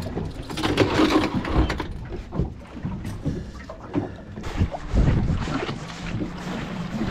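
Wind on the microphone and water noise around a small fishing boat, with scattered irregular knocks of gear being handled.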